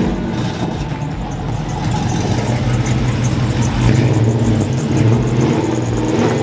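Custom classic Chevrolet pickup's engine idling loudly with a deep, steady running sound.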